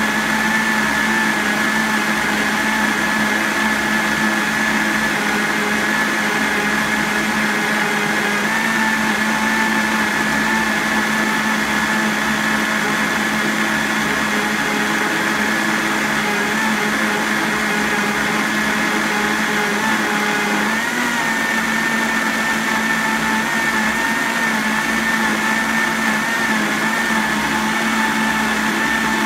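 Vitamix blender motor running steadily, working through a thick load of raw vegetables including beets, with a brief wobble in pitch about 21 seconds in.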